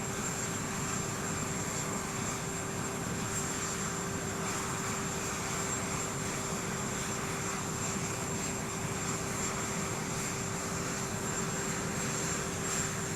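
Aircraft engine running steadily: an even rushing noise with a constant low hum and a thin high whine over it.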